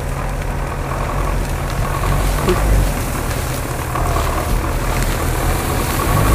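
GAZ-66 off-road truck's engine running as it drives through tall dry weeds, the drone getting louder as the truck comes close.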